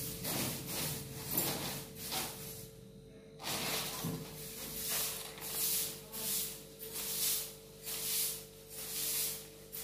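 A long-bristled grass broom sweeping a hard floor: rhythmic swishes about once a second, with a brief pause about three seconds in.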